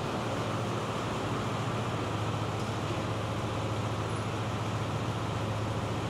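Farm tractor's diesel engine running steadily at low revs, a constant low hum.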